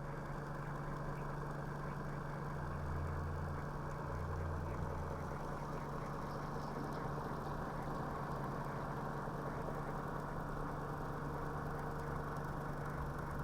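A small 3D-printed motor-generator runs steadily with an even mechanical hum.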